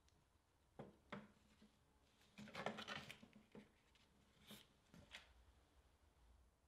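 Faint knocks and scrapes of a wooden stirring stick against the side of a metal paint can as thick linseed paint is stirred. A denser run of scraping comes about two and a half seconds in, then a few single taps.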